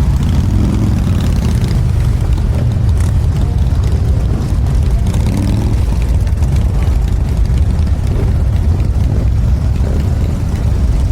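Steady low rumble of a vehicle on the move, engine and road noise.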